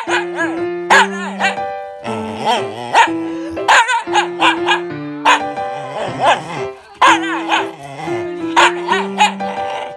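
Shiba inu giving repeated short complaining barks, each call rising and falling in pitch, about one a second, as it protests at the pretend bullying of the other dog. Background music with steady held notes plays underneath.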